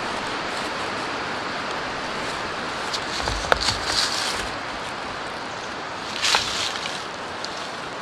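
A hand-held rock knocking a wooden tent stake into the ground: a few sharp knocks about three and a half seconds in, then another short burst a little past six seconds, over a steady rushing background noise.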